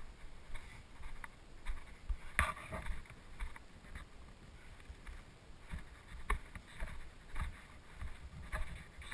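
Footsteps, one soft rustling step roughly every half second to a second, the loudest about two and a half seconds in, over a low rumble on the microphone.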